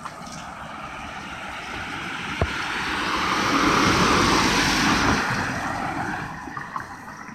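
A car passing on a wet road, its tyre hiss swelling to a peak about four seconds in and then fading away.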